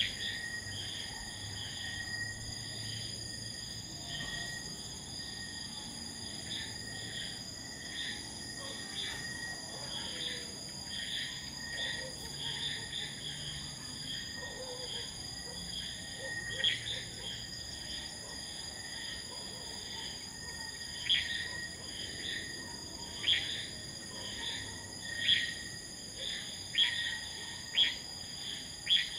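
Night insects calling: a steady high-pitched trill runs underneath, with short chirps repeating throughout that become louder and sharper in the second half, about one every second or two.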